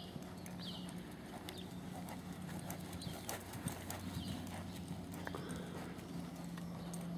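Hoofbeats of a ridden horse moving around a sand arena, an uneven series of soft thuds, over a steady low hum.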